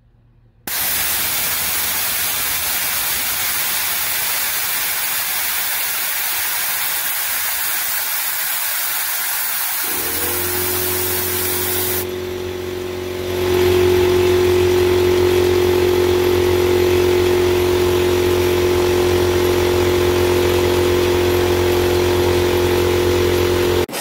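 Compressed air hissing loudly out of an air compressor tank's pull-ring pressure relief valve. About ten seconds in, the belt-driven compressor pump and motor start up with a steady hum as the tank pressure falls to the new pressure switch's cut-in point. The hiss stops about two seconds later and the compressor keeps running.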